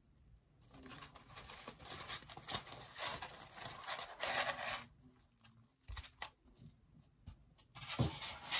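Styrofoam packaging of a boxed bobblehead being pulled apart and handled: two spells of rustling and scraping, with a few light knocks in between.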